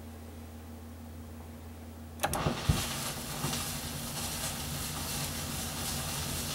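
Low steady hum, then about two seconds in the turntable's stylus comes down onto a 1914 Victor shellac 78 rpm record with a click and a thump. After that comes the steady crackle and hiss of the needle riding the record's surface.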